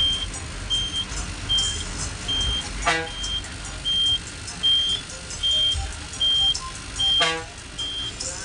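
Steady electronic beeping from a bus's buzzer, about one and a half short high beeps a second, over the low running noise of an Ashok Leyland bus and street traffic. Two short horn toots come about three seconds and seven seconds in.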